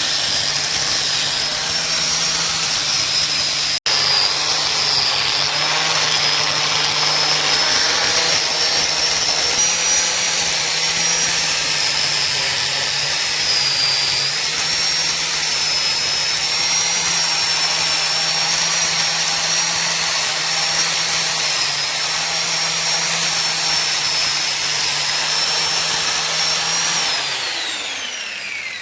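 A high-speed electric power tool running steadily with a high, slightly wavering whine. It is switched off near the end, and the whine falls in pitch as the motor winds down.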